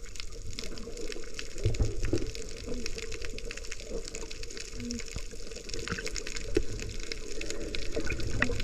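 Sea water sloshing and bubbling around a GoPro camera in its waterproof housing. It sounds muffled, with many small clicks and crackles and a stronger low surge about two seconds in.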